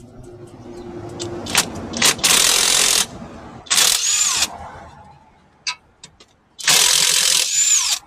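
Electric starter cranking a diesel engine in three short bursts, each cut off with a falling whine as the starter lets go.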